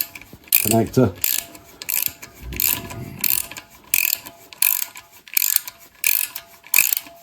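Worm-drive hose clip being tightened onto a flexible WC pan connector: a rasping, clicking ratchet-like stroke repeated evenly about one and a half times a second as the clip screw is turned.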